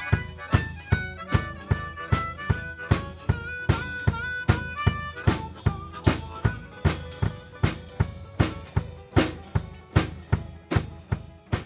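Blues band playing: a harmonica carries the melody with held and bending notes over a steady drum beat and strummed acoustic guitar.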